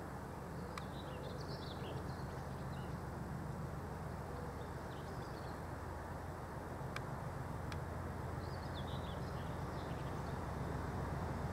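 Colas Class 37 diesel locomotive's English Electric V12 engine: a distant low rumble growing slowly louder as the train approaches. Small birds chirp a few times.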